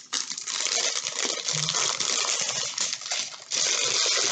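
Small bags of diamond painting drills (tiny plastic beads) being handled, the beads rattling and clicking inside as the plastic bags crinkle.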